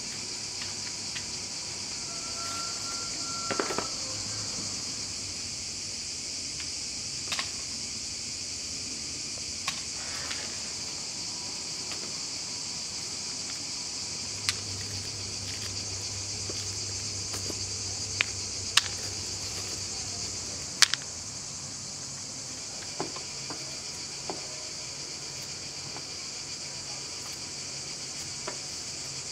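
Steady high-pitched buzzing of cicadas, with a few sharp clicks and knocks as almonds are stripped of their green hulls by hand and dropped into plastic crates and a plastic colander.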